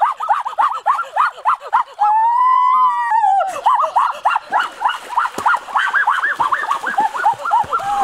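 Rapid high-pitched yelping cries, about five or six a second, broken about two seconds in by one long drawn-out cry.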